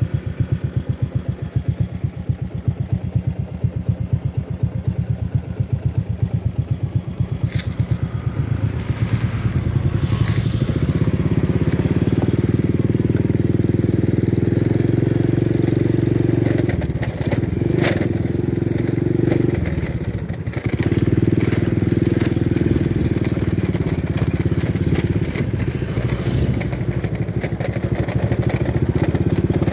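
Motorcycle engine idling with an even low chugging beat, then running louder and steadier as the bike pulls away and rides along. The engine note dips briefly twice about two-thirds of the way through.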